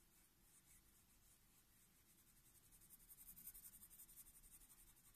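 Faint scratching of a blunt colored pencil on paper in quick short strokes, sketching fur hairs. It gets faster and a little louder a little past halfway.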